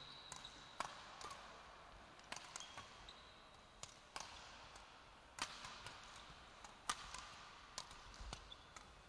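Badminton rally: a string of sharp racket hits on the shuttlecock, roughly every half second to a second, with brief shoe squeaks on the hall floor.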